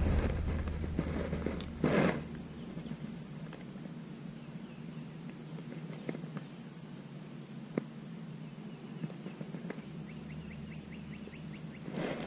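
A steady high-pitched insect trill, with a short rustle about two seconds in and a few faint clicks.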